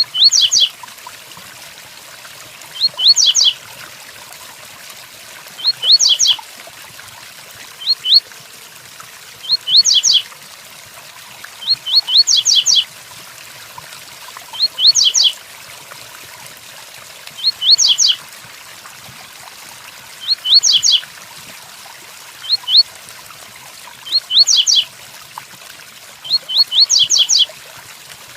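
Double-collared seedeater (coleiro) singing its 'tui-tuí' song: short phrases of two to four quick, high notes, repeated about every two to three seconds. A steady hiss of rain runs underneath.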